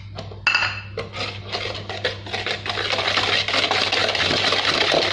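Wire balloon whisk beating eggs, sugar and oil in a plastic mixing bowl: a fast, dense run of clicking strokes that grows louder and more continuous about halfway through.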